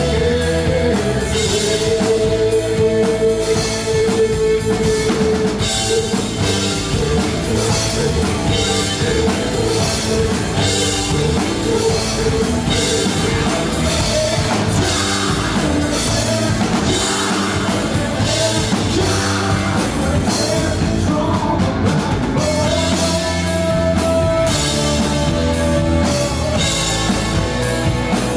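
A rock band playing live, with electric guitars, a drum kit and keyboard, and a singer. A long held note sounds over the first few seconds.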